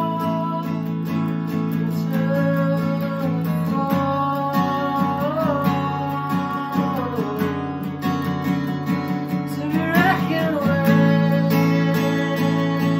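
Acoustic guitar strummed in a steady rhythm, with a man singing over it; his voice comes in about two seconds in and drops out near the end.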